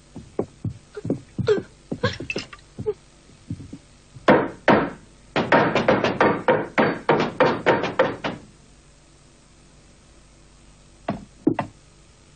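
Boots stepping on a wooden floor at first, then hammer blows on wood: a quick run of about a dozen strikes, roughly four a second, and two more blows near the end.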